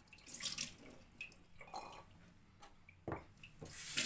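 Faint drips and small handling knocks at a kitchen sink just after the tap is shut off, with a louder knock about three seconds in.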